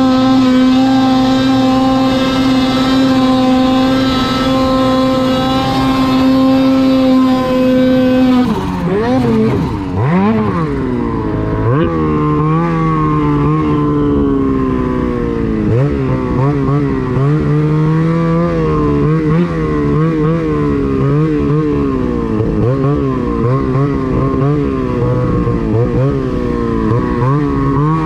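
Lynx Shredder snowmobile engine held at steady high revs under load while climbing for about eight seconds, then the revs drop and rise again and again as the throttle is worked on and off.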